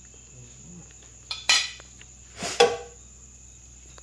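Metal utensils clattering against a cooking pot and a plate: two short clatters about a second apart. A faint, steady high-pitched whine runs underneath.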